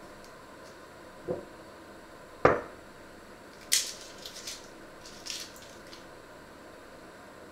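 Onions being peeled with a small kitchen knife over a wooden board. There are two dull knocks on the wood, the second and louder about two and a half seconds in. Short crisp crackles of dry, papery onion skin being cut and torn come around four and five seconds in.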